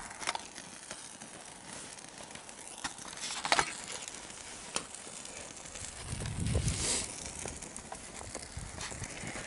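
A trash fire crackling, with scattered sharp pops and crinkling, a cluster of pops about three and a half seconds in, and a brief low rumble around six to seven seconds in.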